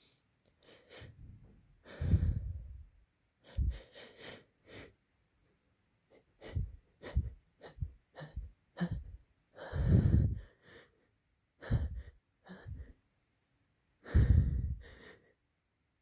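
A person's exaggerated sneeze buildup: a string of short, catching gasps and breaths in irregular bursts, the longest and loudest about two seconds in, near the middle and near the end.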